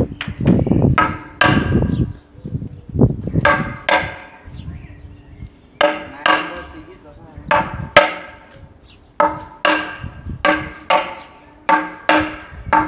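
A semantron (talanton), a hanging board struck with a mallet, beaten in the Orthodox call-to-prayer manner. Each stroke gives a sharp knock with a ringing pitch. The strokes are sparse and uneven at first, then from about four seconds in fall into a quickening rhythm of about two strikes a second.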